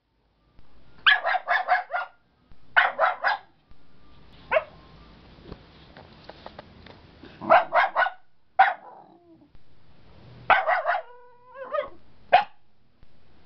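An adult dog barking angrily in quick bursts of three to five sharp barks, with single barks between them and a brief wavering whine shortly before the end.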